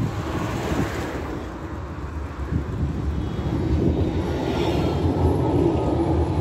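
A tram running on its rails, a steady rumble that grows louder in the second half, with a faint whine coming in about four seconds in.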